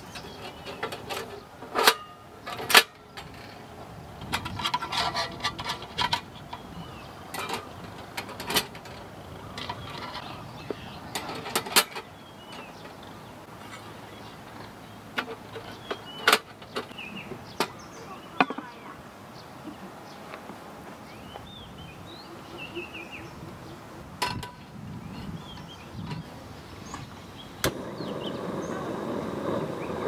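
Scattered clicks and knocks with faint voices in the background; about two seconds before the end a steady, louder noise sets in abruptly.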